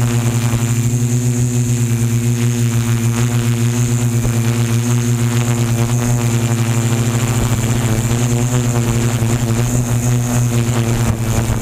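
Multirotor drone's electric motors and propellers running steadily in a hover, picked up close by the camera on the drone itself: a loud, even buzz with a fast flutter in its loudness.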